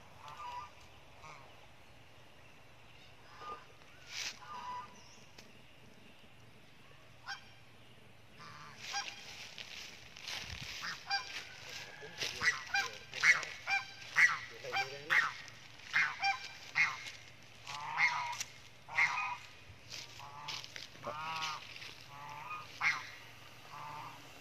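Macaques calling: a few scattered high-pitched screeches, then from about a third of the way in a rapid run of short screams and squeals, loudest in the middle.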